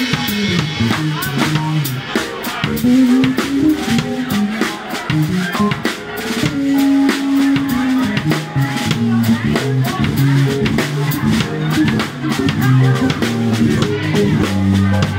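Live band music: a drum kit keeping a steady beat under a moving bass guitar line.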